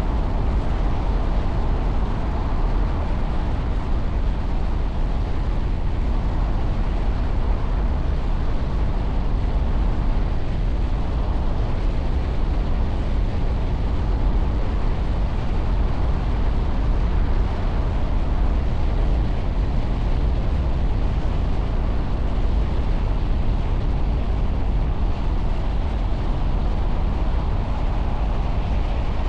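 Steady city traffic and road noise, a low even rumble that does not change.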